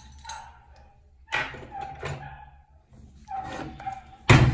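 Clamps coming off a metal injection mould for soft-plastic lures, with metal knocking on the work table: one knock about a second in and a louder, ringing one near the end. Short thin whining tones come in between.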